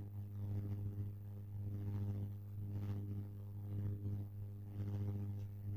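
A steady low electrical hum with its overtones, over faint hiss.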